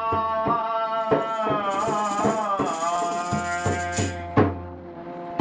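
Chutney-style music: a voice singing long held notes over a dholak barrel drum beaten by hand, about two to three strokes a second, with a rattling jingle in the middle.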